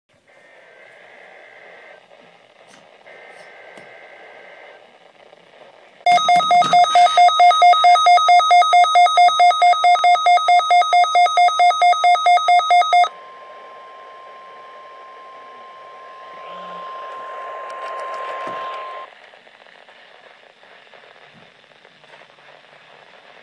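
Emergency Alert System required weekly test tones. Two short bursts of buzzy digital header data come first. Then a loud pulsing alert tone beats about four times a second for roughly seven seconds. A steady single-pitch tone follows for about six seconds and cuts off suddenly.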